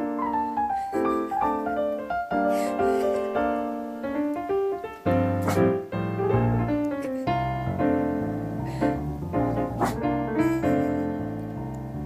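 Background piano music; low bass notes join about five seconds in.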